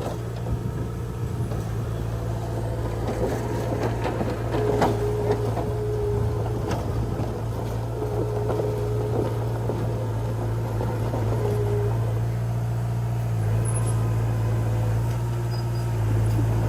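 Komatsu D20P crawler bulldozer's diesel engine running steadily, with scattered metallic clanks and a few short squeals, and working harder near the end.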